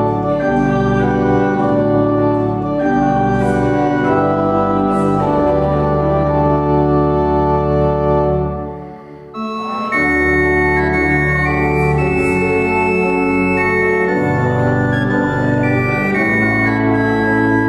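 Church organ playing slow held chords. The sound fades briefly about nine seconds in, at the end of a phrase, and the next phrase then begins.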